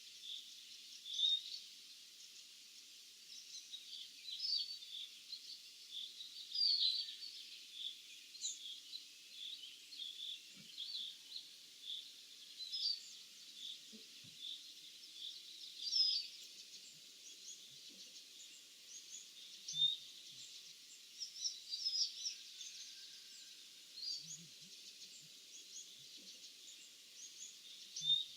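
Several small songbirds chirping and calling, many short high chirps scattered irregularly and overlapping, over a faint steady hiss.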